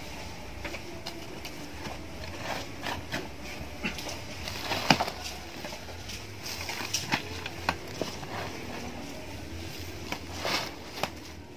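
Burnt fertilizer being scraped up with a small hand tool and tipped into a woven plastic sack: irregular scrapes and soft knocks, the sharpest about five seconds in and again near the end.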